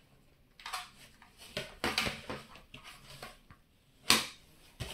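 Plastic plug-in charger and its cable being handled and set against a wooden tabletop: a string of light clicks, knocks and rustles, with one sharper knock about four seconds in.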